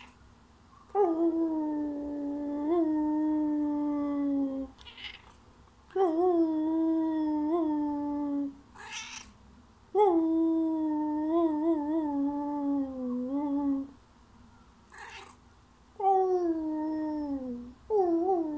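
A person howling in long held notes that sag slightly in pitch, with short, breathy calls from a Thai (Siamese-type) cat answering in the gaps between the howls.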